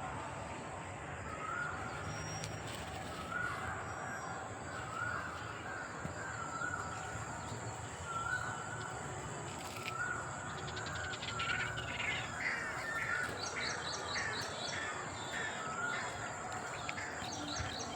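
Birds calling over a steady outdoor background: short repeated calls every second or two, joined about two thirds of the way in by faster chirping and a run of quick high notes.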